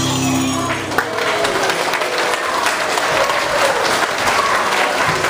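Audience clapping at the end of a children's song. The song's last held note cuts off about a second in, and steady applause fills the rest.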